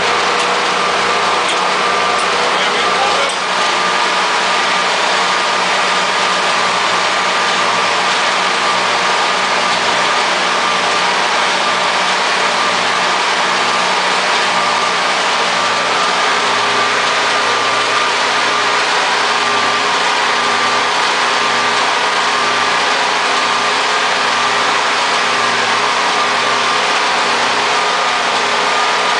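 Spray foam rig machinery running steadily under load: the dual hydraulic proportioner pumping while foam is sprayed. A steady high whine sits over a broad hum, and one lower tone drops slightly about halfway.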